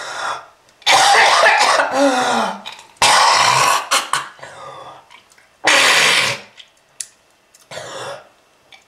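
A person coughing hard in four rough bouts, each about a second long or a little more, the first ending in a falling, voiced rasp.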